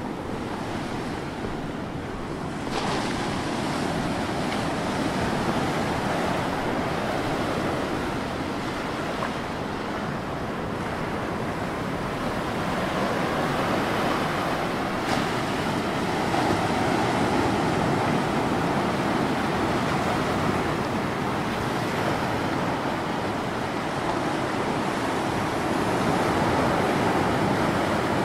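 Sea waves breaking and washing over a flat rocky shoreline: a steady surf noise that swells and eases gently, getting louder about three seconds in.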